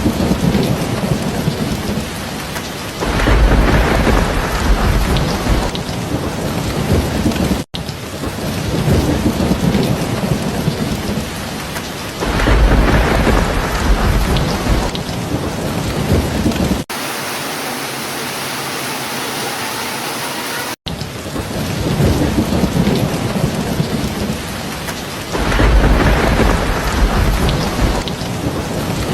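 Steady heavy rain with low rolls of thunder swelling up three times, each lasting a few seconds. The rain cuts off abruptly twice, and for a few seconds in the middle a steadier, thinner hiss with no thunder takes its place.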